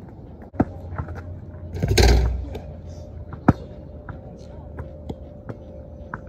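A basketball bounces once on plastic court tiles. About two seconds in, a dunk crashes into the rim and backboard with a thud and a rattle. A second and a half later the ball drops and bounces hard again, followed by a few light taps.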